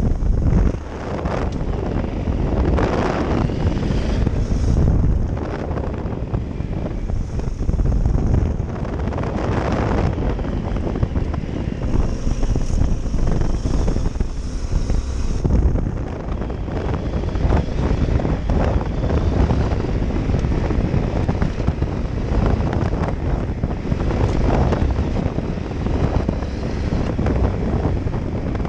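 Yamaha Super Ténéré adventure motorcycle's parallel-twin engine running at speed, its level swelling and easing every few seconds, with heavy wind buffeting on the microphone.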